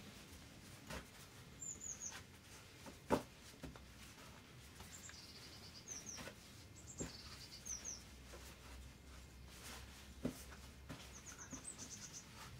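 Faint soft thuds and taps of bread dough being kneaded by hand, the loudest about three seconds in. A small bird chirps several times in short groups of quick, high, falling notes.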